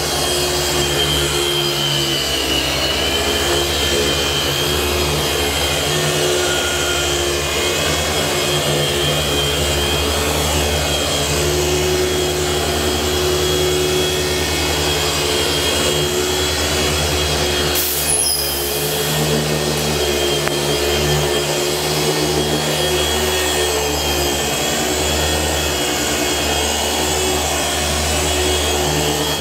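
Electric machine polisher running steadily under load, compounding car paint with a microfiber pad; its pitch wavers a little as it is worked across the panel.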